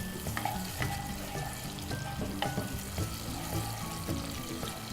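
Green chilies and ginger-garlic paste sizzling in hot oil in a pan, with a few light clicks, over background music.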